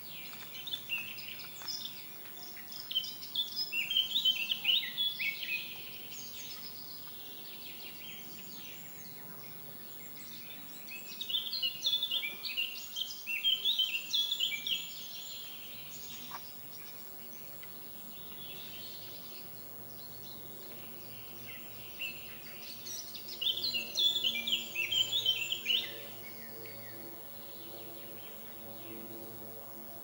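Songbird singing in three bouts of quick high chirping phrases, about ten seconds apart, over a faint low steady hum.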